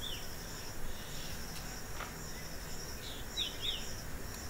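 Faint background chirping of crickets, a steady pulsing trill, with a few quick higher chirps at the start and about three seconds in.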